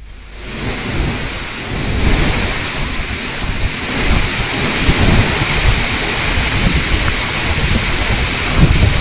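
Steady rushing noise of wind over choppy floodwater on a wide reservoir, fading in over the first second, with wind buffeting the microphone in uneven low rumbles.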